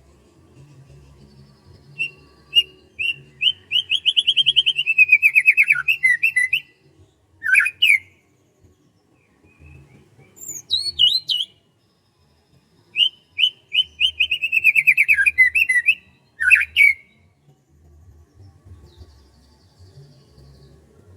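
A songbird singing the same phrase twice: a fast run of repeated notes that falls in pitch near its end, then a short call. Brief high calls come between the two phrases.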